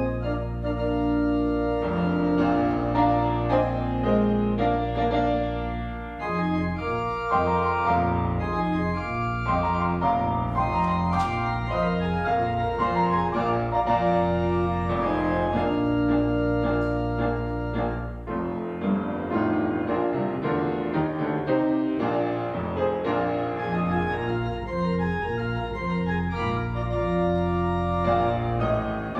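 Organ playing a slow closing piece of held chords over deep bass pedal notes; the deep bass drops out about two thirds of the way through.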